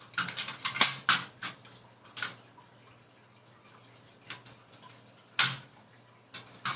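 Clicks and light knocks of a folding camp stove's parts being handled and fitted together: a quick cluster at the start, then single knocks spaced out, the loudest about five seconds in.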